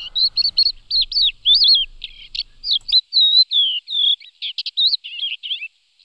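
Crested lark singing: a fast, varied run of clear whistled notes and warbles that stops shortly before the end.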